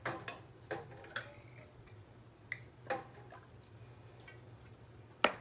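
Metal canning lids clicking and clinking as they are lifted from a pan of water with a lid wand and set on glass jars: a handful of separate sharp clicks, the loudest near the end.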